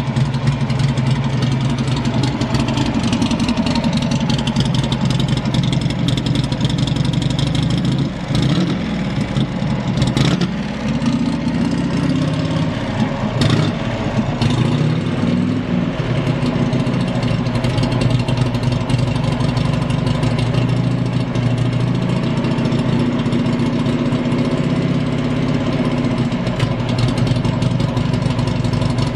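Buell XB9R Firebolt's air-cooled V-twin idling steadily, with a brief rise and fall in engine speed about ten seconds in and a few sharp clicks around then. The idle is even, with no abnormal noise.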